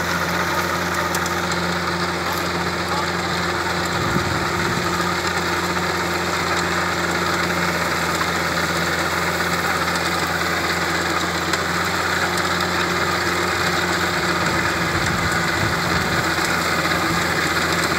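Diesel engine of a VST Mitsubishi 27 HP mini tractor running steadily as it drives a rotary tiller through the soil between sugarcane rows.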